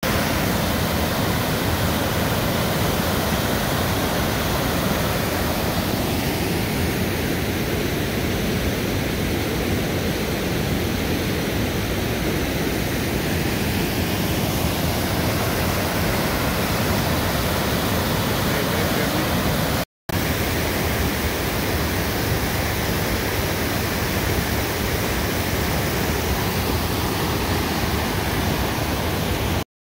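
Provo River Falls' whitewater cascading over rock ledges: a loud, steady rushing of water, broken twice by a moment's silence.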